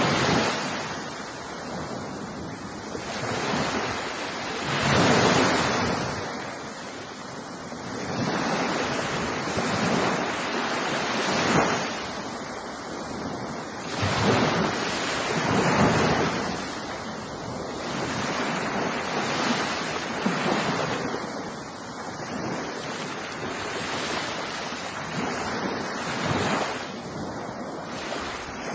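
Ocean surf: waves breaking and washing in, the rush of water swelling and falling back every few seconds.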